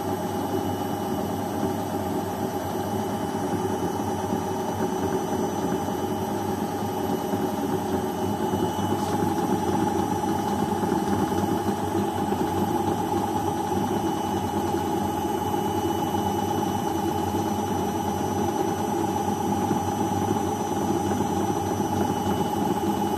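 Beko front-loading washing machine spinning its drum: a steady motor hum with a thin whine over it, growing slightly louder about a third of the way in.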